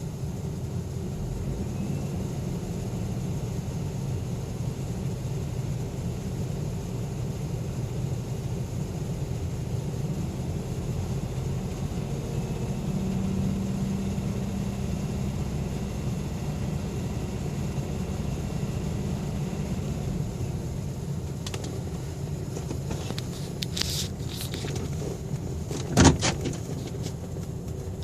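2002 GMC Sonoma's 4.3-litre V6 idling steadily, while the scanner logs misfires that cannot be felt and a power balance test shows all cylinders contributing equally. Near the end come a few sharp clicks and one louder knock.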